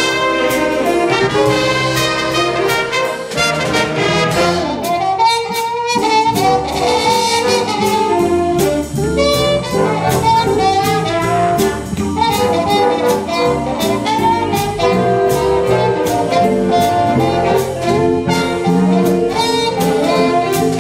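School jazz band playing a blues live: saxophones and brass over a steady drum-kit beat, with electric guitar.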